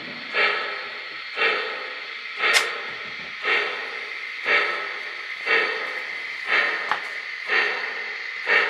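Model 2-8-2 steam locomotive's sound system chuffing slowly, about one steam chuff a second over a steady hiss, as the engine pulls its freight train at low speed. A sharp click comes about two and a half seconds in.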